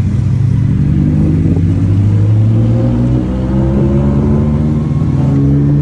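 A motor vehicle's engine accelerating: its pitch climbs steadily over the first few seconds, then holds.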